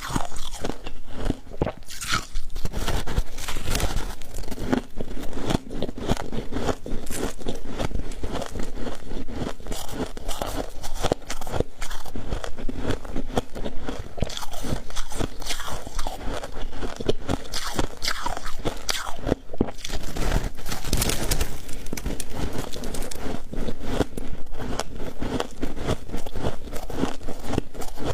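Freezer frost being bitten and chewed close to the microphone: a dense, continuous run of crisp crunches.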